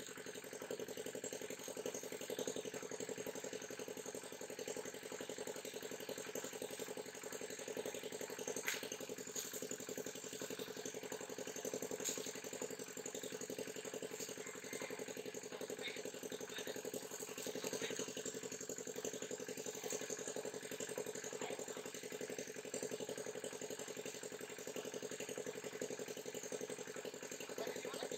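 An engine running steadily at a constant speed: an even hum that holds one pitch throughout, with a few faint clicks over it.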